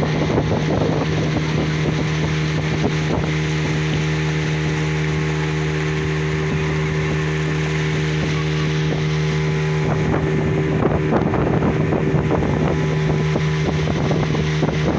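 Motorboat engine running at a steady pitch, with wind on the microphone.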